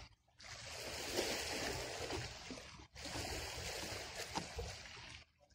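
Sea water washing against a rocky seawall as a steady hiss, broken twice by brief drops to silence.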